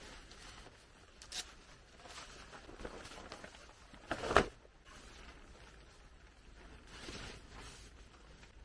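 Fabric rustling of a jacket being pulled off and handled, in several short swishes, with one sharp, loud swish about four seconds in as it is shaken.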